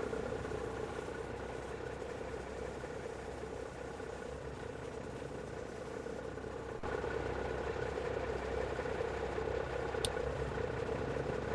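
Motor vehicle engine idling with a steady hum.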